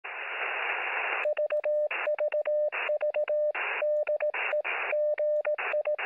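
Morse code (CW) tone heard through a radio receiver: about a second of static hiss, then a steady beep keyed in dots and dashes, with the static coming up in every gap between them. It opens with the letter V repeated, dit-dit-dit-dah, the "VVV" attention call.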